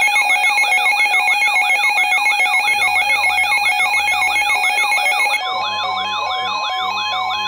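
Electronic emergency alert tones announcing an incoming weather warning. A loud siren-like wail rises and falls several times a second over steady tones, and about five seconds in it changes to a single steady tone with a stepping two-pitch beeping.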